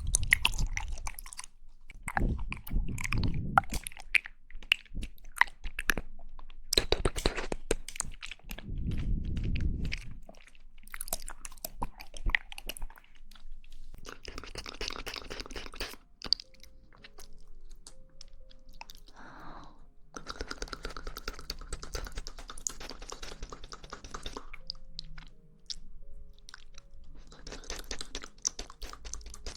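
Close-miked mouth sounds of eating jelly: wet chewing and squelching with lots of small clicks. The loudest squelches come in the first ten seconds, followed by quieter, hissier stretches.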